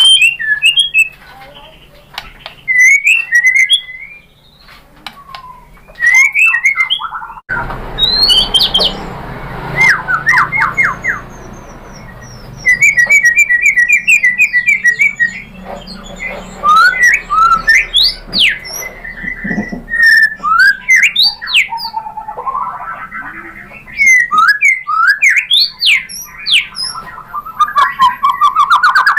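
White-rumped shama singing loud, varied phrases of clear whistles that sweep up and down, rapid repeated trills and short chattering notes, with brief pauses between bursts: an excited full song showing off its repertoire of mimicked calls. A steady hiss sits beneath the song through the middle.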